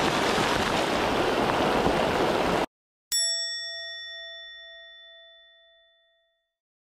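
Heavy rain pelting a river's surface over the rush of the current, cut off abruptly about two and a half seconds in. Half a second later a single bell-like chime is struck and rings out, fading slowly over about three seconds.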